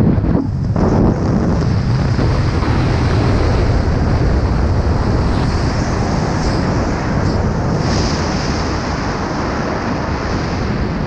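Wind rushing over the camera microphone during a parachute canopy flight on final approach to landing: a loud, steady buffeting that eases slightly toward the end.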